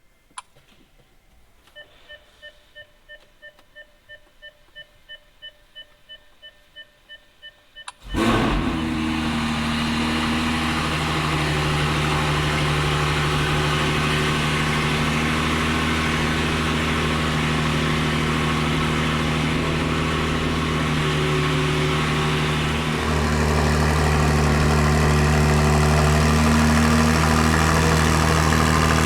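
A chime beeps about three times a second for several seconds. Then, about eight seconds in, a Ferrari 296 GTS's twin-turbo V6 with a full Capristo exhaust starts up with a sudden burst and settles into a steady idle, which grows a little louder a few seconds before the end.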